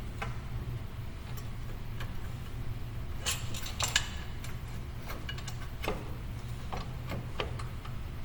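Scattered sharp metal clicks and taps at irregular spacing as bolts and brake parts are fitted by hand on a steering knuckle. There is a steady low hum under them.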